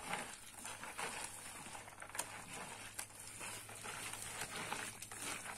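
Lime-cooked corn kernels (nixtamal) rubbed and churned by hand in a woven basket, a soft irregular pattering and rustling of many small clicks, as the kernels are scrubbed clean of the lime before rinsing.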